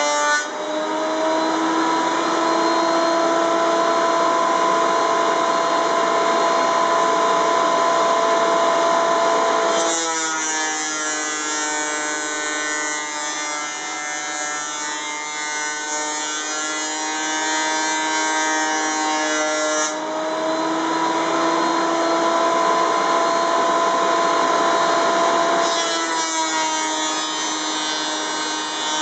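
Ridgid 13-inch benchtop thickness planer running with a steady, loud motor whine and cutterhead hiss as thin walnut boards are fed through and planed down. The tone changes abruptly about ten seconds in, again around twenty seconds, and near the end as boards enter and clear the cutterhead.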